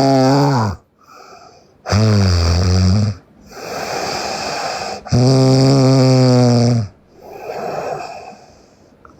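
A sleeping woman snoring loudly in a steady breathing rhythm. There are two full snores, each a buzzing sound lasting a second or more, plus the end of one at the start, with softer breaths in between.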